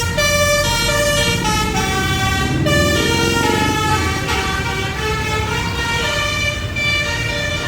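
Telolet multi-tone bus horn playing a quick tune, its notes jumping from pitch to pitch every fraction of a second, over the low rumble of the bus engine.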